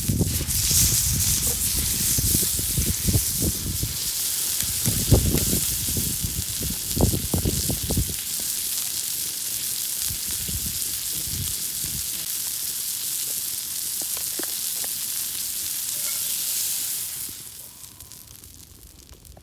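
Beef steak sizzling as it fries in a hot pan, a steady hiss that dies away fairly suddenly near the end. Low rumbling and thumps sound under the sizzle during the first several seconds.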